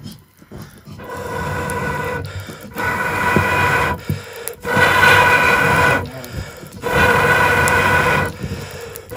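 Someone blowing into a wood fire through a blowpipe: four breathy blasts about a second long, one every two seconds, each carrying a steady hollow tone from the pipe.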